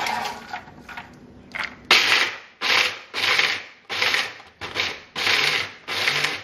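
A few clicks of almonds dropping into an electric mini chopper. Then, about two seconds in, the chopper runs in short pulses, about six bursts of whirring and clatter, as its blade breaks the toasted almonds into coarse pieces.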